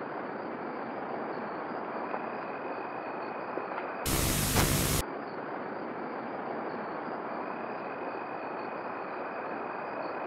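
Steady static-like hiss with a faint thin high tone above it; about four seconds in, a louder burst of hiss lasts about a second.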